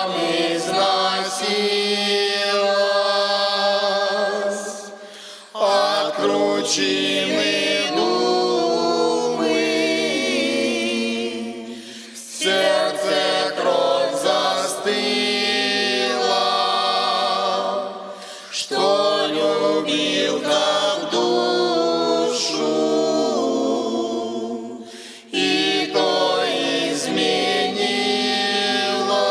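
Russian folk choir singing a slow song in several voices, in long phrases with a short break for breath about every six to seven seconds.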